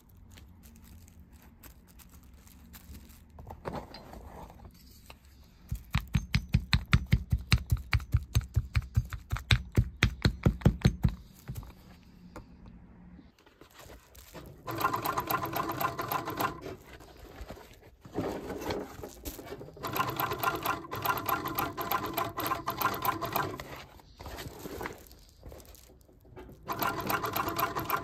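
Industrial sewing machine stitching a patch onto a leather jacket. First comes a run of slow, evenly spaced stitches, about six a second. Then come three faster runs of a few seconds each, with short pauses between them.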